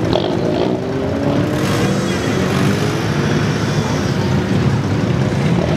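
Car engines running on the road, one with a droning engine note that slowly rises in pitch over the first few seconds as it gains speed, over steady traffic rumble.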